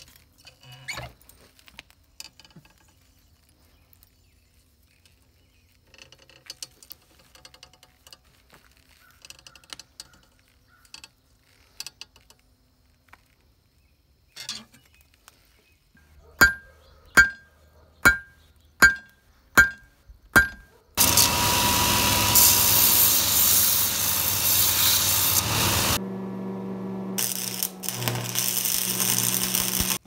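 Six hammer blows on hot steel on an anvil, each with a short ring, about one every 0.7 seconds. Then comes a loud, steady noise from an electric welder tack-welding the Damascus stack, in two stretches of about five and three seconds with a short break between.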